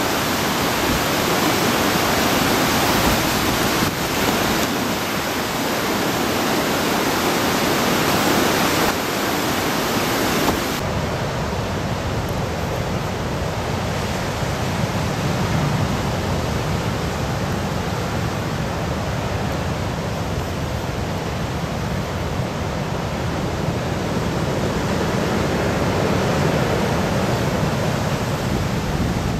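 Typhoon floodwater rushing down a swollen river in a dense, steady roar of water. About ten seconds in it gives way to heavy storm surf breaking and washing against a concrete sea wall, a lower, rumbling wash.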